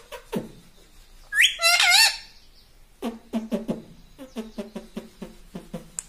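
Indian ringneck parrot vocalizing. A loud wavy call comes about a second and a half in, then a run of short, low repeated notes, about four or five a second, fills the last three seconds.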